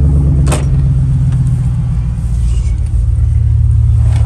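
Truck engine running steadily at a constant low pitch, with a single sharp click about half a second in.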